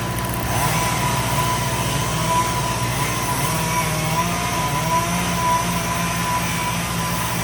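Skid steer engine running steadily, its pitch rising and falling slightly, with a high whine held over it.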